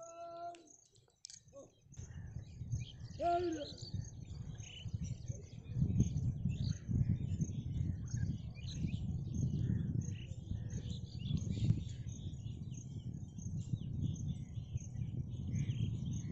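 Many small birds chirping over a low, uneven rumbling noise that comes in about two seconds in and is the loudest sound, with a couple of short pitched calls in the first few seconds.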